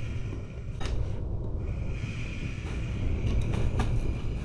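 Gale-force wind gusting against the microphone, a steady low rumble with a few sharp knocks and rattles through it.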